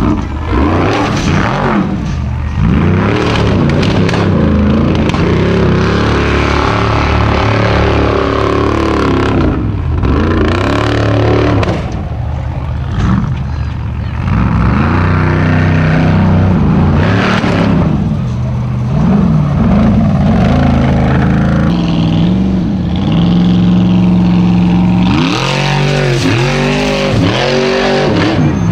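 Off-road race buggy's engine at full throttle, revving up and dropping back again and again as it climbs a steep dirt bank, with a run of quick rev blips near the end.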